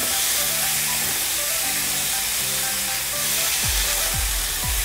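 Chopped onions sizzling in hot oil in a nonstick frying pan as a silicone spatula stirs them. Background music plays under the sizzle, and a deep beat of about two falling thumps a second comes in near the end.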